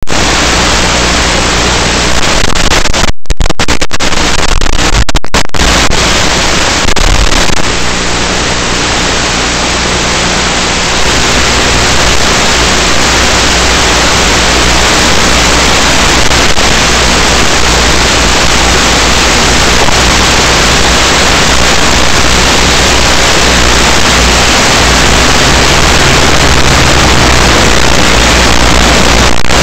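Loud, steady static hiss from an analog FPV video receiver's audio channel, recorded by the goggles' DVR with no sound coming from the camera. It cuts out for split seconds a few times between about three and five seconds in.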